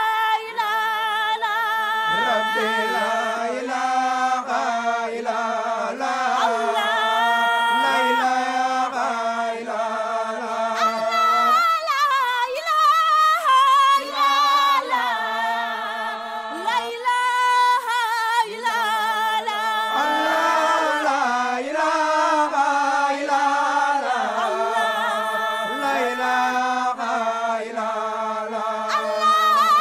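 A cappella male vocal group singing an Islamic devotional chant, the melody carried over a steady, held low note, with no instruments.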